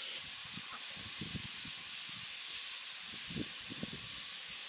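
Water boiling in a cast-iron cauldron with a whole chicken in it: a steady hiss of steam with irregular low bubbling.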